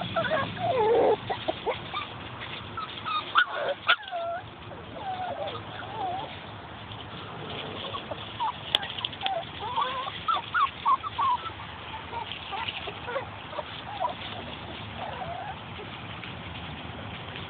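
Six-week-old miniature schnauzer puppies giving many short, high squeaks and yips, thickest in the first few seconds and again around the middle, over a rustle of dry leaves under their paws.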